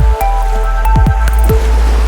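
Electronic background music: short bright notes over a heavy bass, with quick downward swooping sounds.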